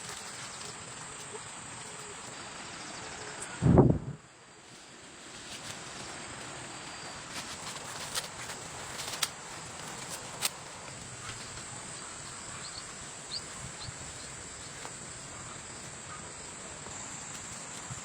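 Steady high insect drone, with one loud low thump about four seconds in and a few sharp clicks scattered later.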